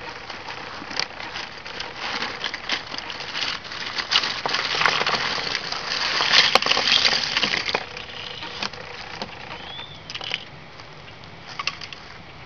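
Small die-cast toy cars clinking and rattling against each other in a crinkling plastic bag as they are rummaged through, busiest from about two to eight seconds in, then only a few scattered clicks.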